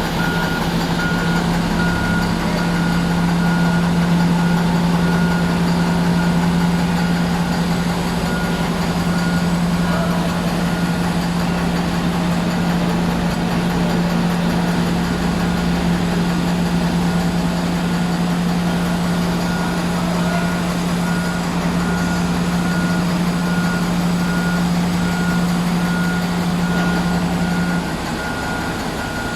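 Komatsu HD785-7 dump truck's diesel engine running at a steady speed, an engine described as knocking, with black smoke and low power. A reversing alarm beeps steadily alongside it. The engine note drops a little near the end.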